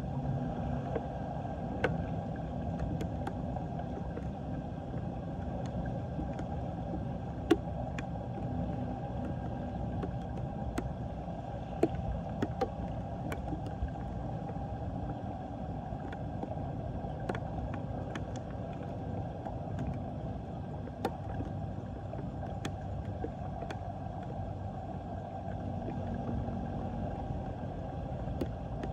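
Floodwater draining in a whirlpool down a street storm drain, a steady low rushing gurgle, with irregular small ticks of raindrops landing on the water.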